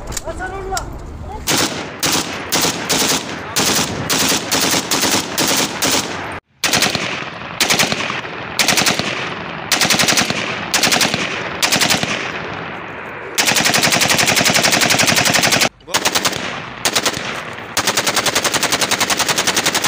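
Kalashnikov-pattern assault rifles firing on full automatic into the air. First come short bursts of a few rounds each, then long unbroken bursts a little past the middle and again near the end. The fire breaks off abruptly twice.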